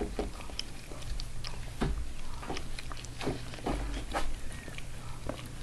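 Newborn Labradoodle puppies suckling at their mother: scattered soft, wet clicks and smacks, irregular, with a few faint squeaks.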